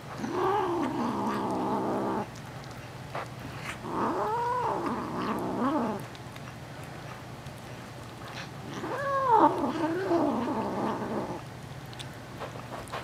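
A kitten gives three long, drawn-out yowling growls while eating at a shared food bowl, each rising and falling in pitch. It is guarding its food from the other kittens.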